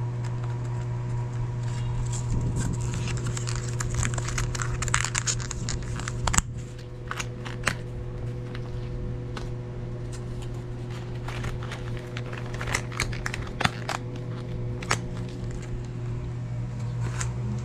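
Thin plastic takeout-container lids being pressed and snapped onto filled tubs: a run of crinkles and sharp clicks, with one loud click about six seconds in, over a steady low hum.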